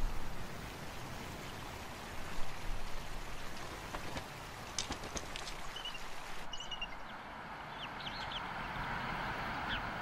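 Outdoor ambience: a steady hiss with a few short, high bird calls in the second half.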